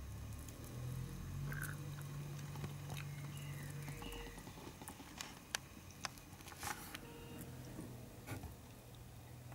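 Close-up scratching and sharp clicking of a European hornet queen moving over and working at the papery nest comb, in scattered ticks during the second half. A low steady hum runs for about three seconds near the start.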